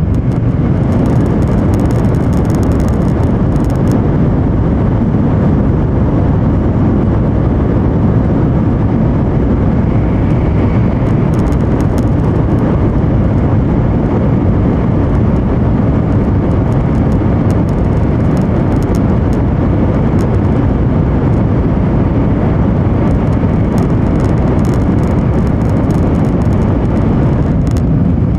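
Steady running noise inside the passenger cabin of an N700 series Shinkansen travelling at speed: a dense, loud low rumble with a fainter hiss above it, unchanging throughout.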